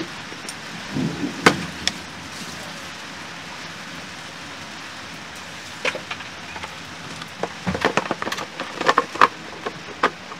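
Scattered light clicks and small knocks over a steady hiss, thickening into a quick cluster of clicks about eight to nine seconds in.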